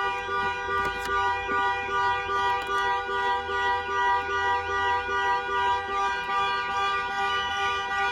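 2020 Range Rover's alarm going off: a steady horn-like tone with a siren sweeping up and down over it in quick, even repeats, the loudness pulsing with each sweep.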